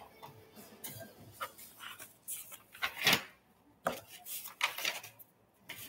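A few irregular knocks and rustles of objects being handled and set down on a desk, with short quiet gaps between them.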